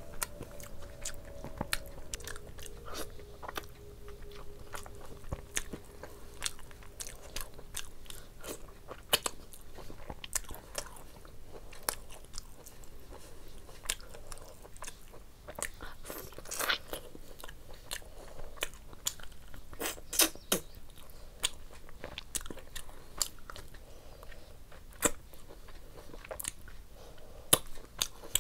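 Close-miked eating: a person chewing and biting mouthfuls of rice and curry, wet mouth sounds with irregular sharp crunching clicks, along with the squelch of rice and curry being mixed by hand.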